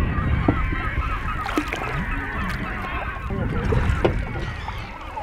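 A flock of seabirds calling continuously, many short overlapping cries, over a low rumble, with a few sharp knocks.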